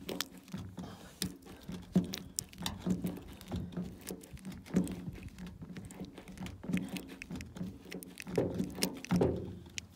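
Irregular small clicks and taps of a push-type grease gun being pumped into the grease hole at the nose sprocket of a chainsaw bar, greasing the sprocket.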